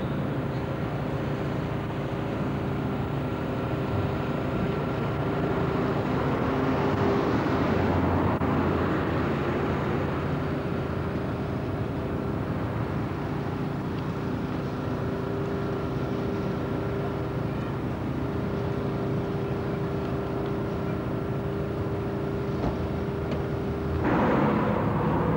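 Steady engine-like hum: a constant low drone with a few unchanging tones over a noisy background, swelling louder briefly near the end.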